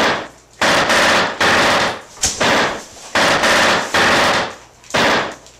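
Rapid automatic gunfire in several bursts of about half a second to a second each, like a submachine gun spraying rounds.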